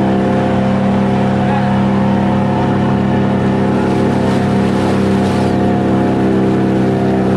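Outboard motor of a wooden fishing pirogue running steadily at one unchanging pitch while the boat is under way.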